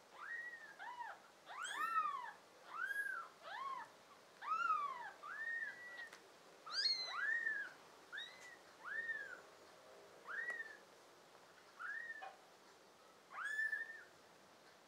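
Newborn kittens mewing over and over: about fifteen short, thin, high-pitched mews, each rising and then falling in pitch, roughly one a second, with two kittens calling over each other in the first few seconds.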